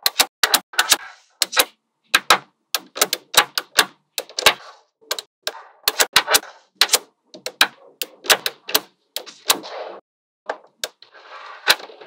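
Small magnetic balls clicking and snapping together, an irregular run of many sharp clicks with short rattles between them, and a brief pause near the end.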